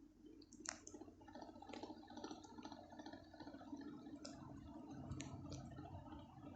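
Ceiling fan running with a faint steady hum, overlaid with scattered light clicks and ticks.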